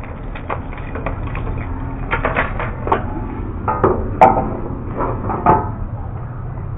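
A bicycle being handled and parked by hand: irregular clicks, knocks and rattles, the sharpest knock about four seconds in, over a steady low hum.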